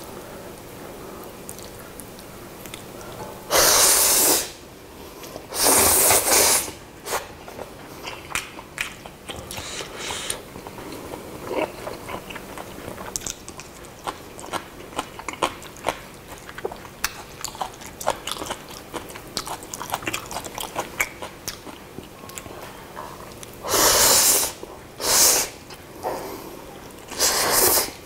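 A person slurping instant black-bean noodles into the mouth in loud, noisy pulls: twice in the first seven seconds and three times near the end. Between the slurps come many small wet clicks of close-miked chewing.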